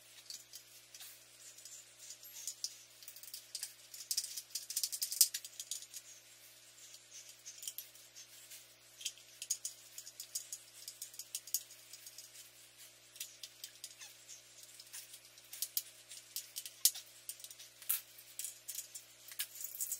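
Small clicks, taps and rattles of a screwdriver, screws and a cover plate being fitted to a metal electrical switch box, scattered irregularly with thicker flurries now and then. A steady low hum runs underneath.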